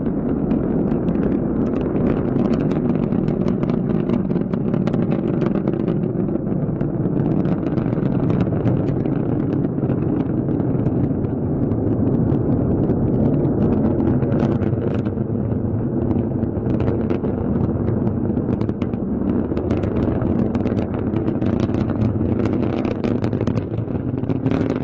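Rocket launch roar: a steady low rumble threaded with dense crackling from the engine exhaust.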